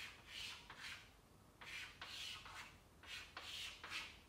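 Chalk scraping on a chalkboard in a series of short strokes as straight lines are drawn.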